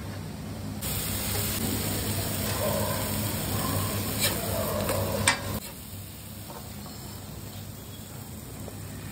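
Masala sizzling on a hot flat iron griddle, with two sharp clicks of metal utensils on the griddle about four and five seconds in. The sizzle drops away after about five and a half seconds, leaving a steady low hum.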